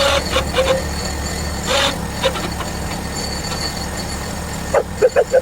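Portable bandsaw mill running steadily, a low engine hum under a high, even whine. A few short knocks come early on, and a quick run of short squeaks near the end.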